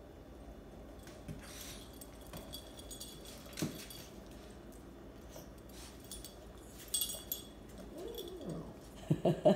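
A small dog's soft whines and grunts, with a couple of sharp clicks, then louder vocal sounds starting just before the end.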